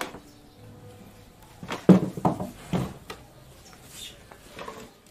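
Dull wooden knocks and taps from woodcarving work at a bench: a quick cluster of several knocks about two seconds in, then a few lighter taps near the end.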